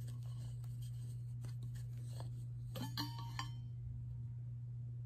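Plastic straw lid being unscrewed from a stainless steel water bottle: faint scraping clicks, then a cluster of sharper clicks and a brief clink with a short ring about three seconds in as the lid comes free. A steady low hum runs underneath.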